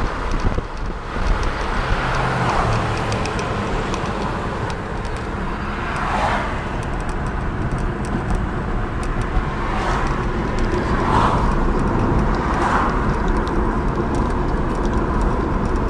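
Steady road and engine rumble of a moving car, heard from inside the cabin, with a few brief swells of noise.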